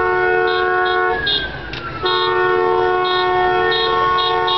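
Vehicle horn with several tones blown in two long blasts. It breaks off about a second in and sounds again about two seconds in. A siren rises and falls behind it.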